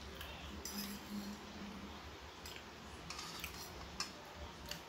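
Several faint, irregular clicks and taps of a metal eating utensil against a plate or bowl while eating.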